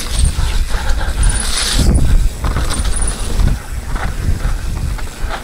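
Enduro mountain bike riding fast down a rough, leaf-covered dirt trail: a steady rumble of tyres over the ground with many short knocks and rattles from the bike, and wind on the microphone. A brief hiss of scraping tyres or leaves comes about one and a half seconds in.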